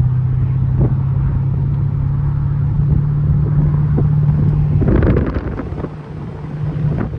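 A car driving, its engine and road noise a steady low drone. About five seconds in there is a brief rush of noise and the drone weakens.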